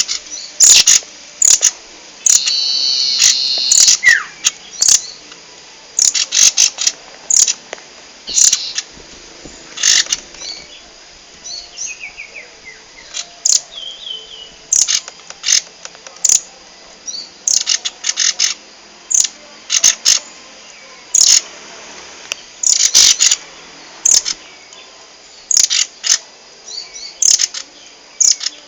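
Caged rambatan loreng songbird calling excitedly: loud, sharp chirps in quick clusters all through, with a short warbled phrase ending in a falling note a few seconds in.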